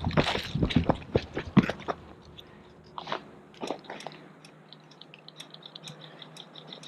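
Footsteps crunching on dirt and gravel, quick and dense for the first couple of seconds, then a few more steps and only faint light ticks.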